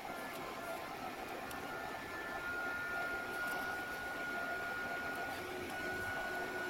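Mikrosha 2000 induction heater running under load, heating a thick-walled stainless steel tube in its coil: a steady hiss with a thin high whine that grows a little stronger about two and a half seconds in.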